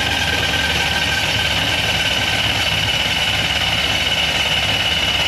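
Starter cranking a Chevy Nova drag car's engine steadily with a high whine, the engine turning over without firing: the freshly drained fuel system is not yet getting fuel up to the rails.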